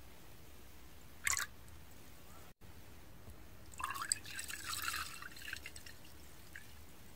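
Makgeolli, milky rice wine, pouring into an earthenware cup and splashing: a short splash about a second in, then a longer spell of splashing and dripping from about four to six seconds in.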